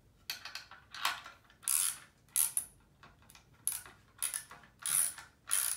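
Ratchet socket wrench clicking as it tightens the nut on a concrete anchor bolt in a steel post base: about eight short bursts of rapid ratchet clicks, one per back-stroke, roughly two-thirds of a second apart, with a brief pause near the middle.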